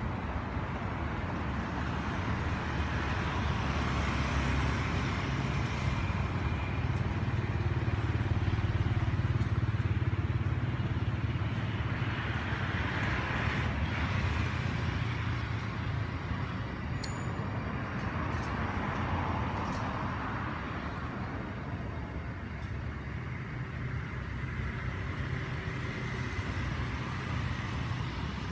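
Continuous low rumble of distant motor traffic, slowly swelling to its loudest about a third of the way in and then easing off.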